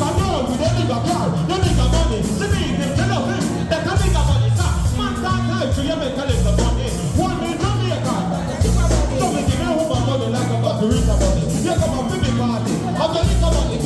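Music with a sung vocal over a heavy, pulsing bass line.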